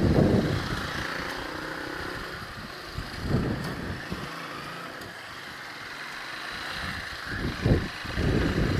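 Motorcycle engine running at low road speed, with loud rumbling gusts of wind on the microphone at the start and again near the end and a quieter stretch in between.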